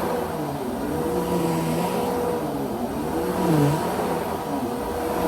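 Bissell Powerforce Helix Rewind Pet upright vacuum cleaner running, a steady motor whine with a lower pitch that rises and falls.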